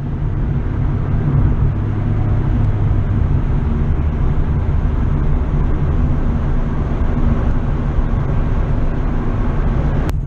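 Steady rumble of a car on the move, engine and road noise, with a single sharp click near the end.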